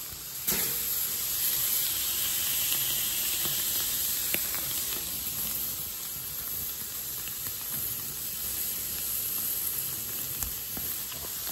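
Chicken breast halves sizzling on a hot charcoal grill grate: a steady hiss, with a sharp click about half a second in and another around four seconds in.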